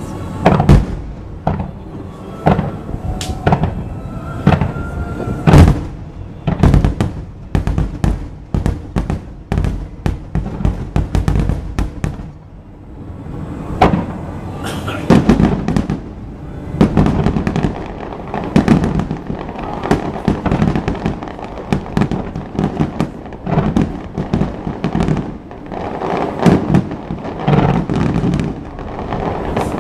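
Aerial fireworks shells bursting one after another: a fast run of sharp bangs, thickest in the first half and loudest about five seconds in, then after a short lull a second run of bangs with a lower rumble between them.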